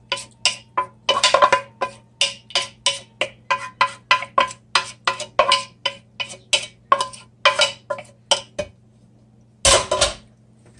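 Wooden spoon scraping and knocking cooked onion mixture out of a nonstick skillet into a stainless steel mixing bowl: a quick run of taps, about three or four a second, each with a short ring. The taps stop a little past eight seconds in, and about a second later comes one louder clatter as the skillet is put aside.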